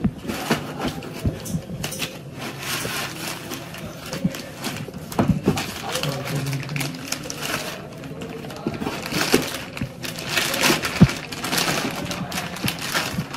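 White foam packing blocks rubbing and squeaking as they are pulled off a boxed laptop, with a few knocks against the box. Later the clear plastic bag around the laptop crinkles as it is handled.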